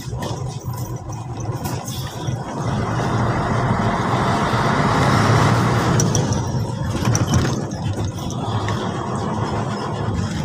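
Diesel engine and road noise of an Isuzu Giga ten-wheeler truck heard from inside the cab while driving. A steady low rumble grows louder partway through, with a few light rattling ticks later on.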